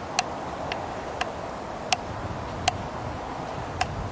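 Six short, sharp clicks at irregular intervals, about one every half second to second, over a steady hiss.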